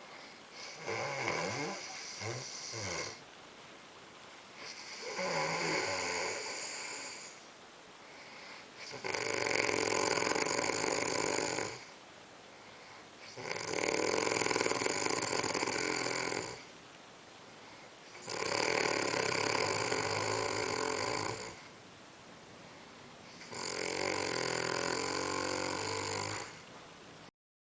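A man snoring in a slow, regular rhythm: six long, rasping snores about every four to five seconds, each two to three seconds long, the first two shorter and softer. The sound cuts off abruptly near the end.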